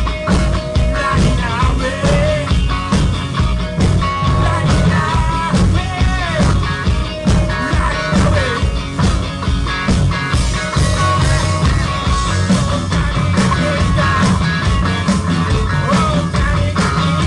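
Four-piece rock band playing live: two electric guitars, bass and drums, loud and continuous.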